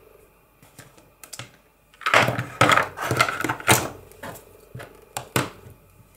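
Clicks and knocks of craft supplies being handled and set down: ink blending tools and a tray of ink pads being cleared off a cutting mat. The clatter is thickest from about two seconds in.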